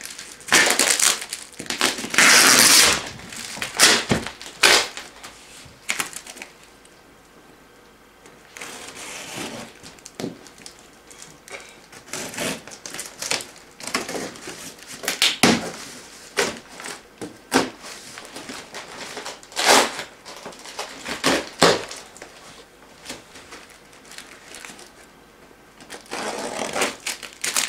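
Plastic packing tape being cut, torn and peeled off a large cardboard box, with the cardboard scraping and crinkling as the flaps are worked open. It comes as a series of noisy rasps, the longest and loudest about two seconds in.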